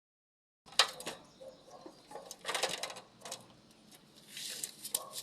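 Metal clinks and knocks from parts and tools being handled while cleaning a carbon-clogged EGR valve. A short spray of aerosol carb and choke cleaner hisses a little past four seconds in.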